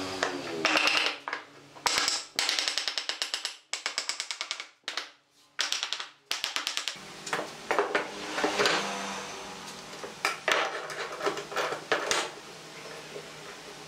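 Background music over workshop handling sounds: a run of quick, rapid scrubbing strokes from about two to six seconds in, as glue is brushed onto mitred pine joints, then scattered knocks of wooden frame pieces and metal pipe clamps being set on the bench.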